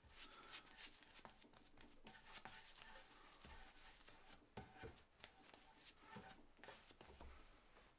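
Very faint, scratchy swishes of a paintbrush stroking oil finish onto a wooden block, many short strokes in irregular succession.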